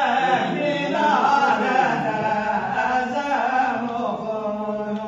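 A man singing solo and unaccompanied, in a chanting style, his voice sliding between long held notes.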